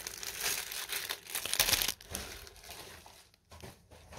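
Thin clear plastic bags crinkling as they are handled: a strip of small zip bags holding acrylic diamond-painting stones. The crinkling is loudest for the first two seconds, then turns to quieter, broken rustling with short pauses.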